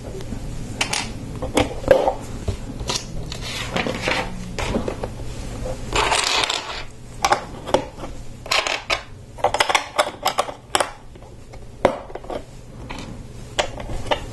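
Plastic Lego bricks clicking and rattling as pieces are handled and pressed together: a string of short, sharp clicks, with a longer rustle of pieces being moved about six seconds in.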